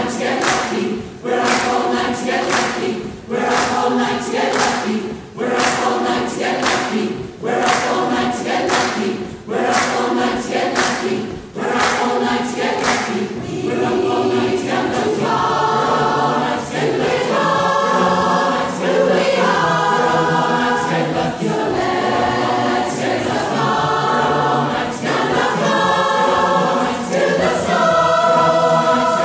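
Large mixed-voice choir singing in chords, with a sharp accent about once a second for the first dozen seconds, then long held chords that swell every couple of seconds.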